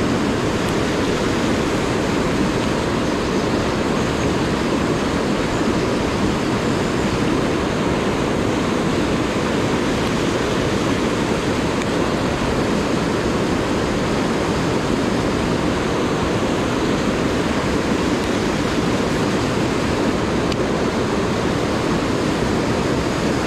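Mountain stream cascading over boulders: a loud, steady rush of white water.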